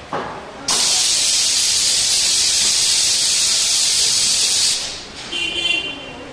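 A loud, steady hiss starts about a second in and cuts off after about four seconds. Near the end comes a short, high-pitched tone.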